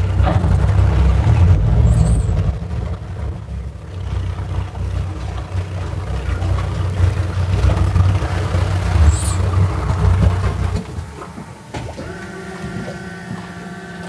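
Triple outboard motors on a center-console boat running at low speed with a deep, steady rumble while docking, their props stirring up the sand in very shallow water. The rumble stops about eleven seconds in, and a steady held tone follows near the end.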